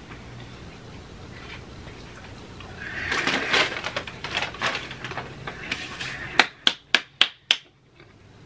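A paper takeout bag rustles and crackles as it is lifted and set aside. Near the end come five sharp clicks in quick succession, the loudest sounds here.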